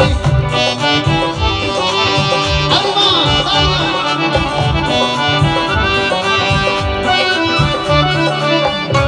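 Live band music played through stage loudspeakers: sustained keyboard chords and other instruments over a steady low beat, with a sliding note about three seconds in.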